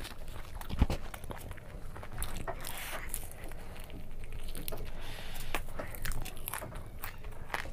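Close-miked eating of fried momos: biting into them and chewing, with many short wet mouth clicks and smacks. One louder knock comes about a second in.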